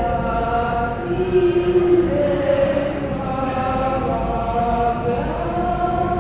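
A woman's voice singing a slow chant in long held notes, stepping to a new pitch every second or two.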